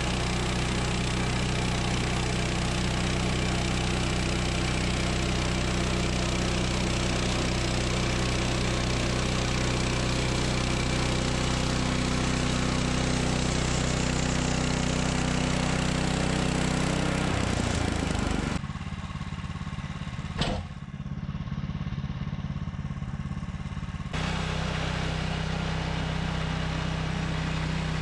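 Woodland Mills HM126 portable sawmill's 14 hp gas engine running steadily. About 17 seconds in, its note drops and the sound changes abruptly to a quieter stretch with one sharp click, before the steady engine sound returns near the end.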